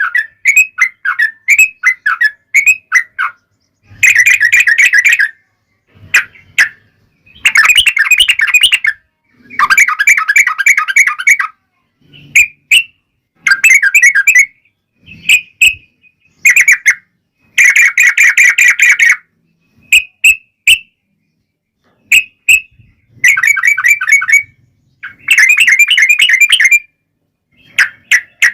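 Yellow-vented bulbul (trucukan) singing: bursts of fast bubbling, stuttering notes, each about a second long, alternating with short chirps and brief pauses.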